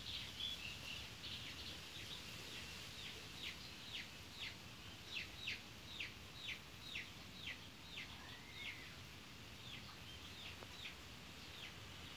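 Young chicks peeping: a run of short, high, falling peeps, about two a second, thinning out near the end.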